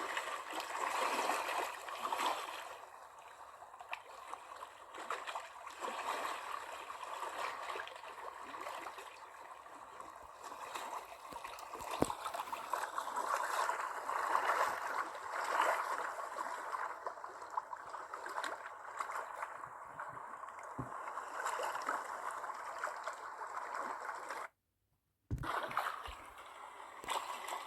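Water gurgling and splashing in uneven surges, with a few sharp knocks. The sound cuts out for under a second near the end.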